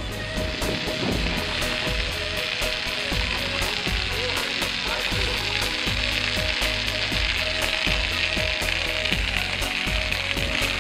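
Tyres of a loaded touring bicycle rolling over lake ice and crusted snow: a steady crackling hiss.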